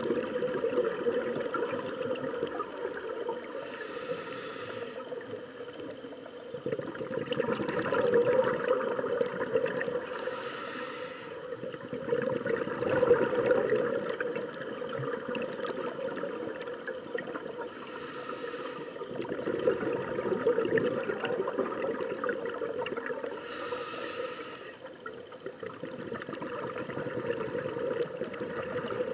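Scuba regulator breathing heard underwater: four hissing inhalations, about six to seven seconds apart, each followed by a rush of bubbling exhaled air.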